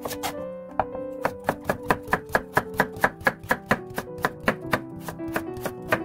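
Chef's knife slicing a carrot into thin strips on a wooden cutting board: a quick, even run of sharp knocks of the blade on the board, about four to five a second, softer toward the end.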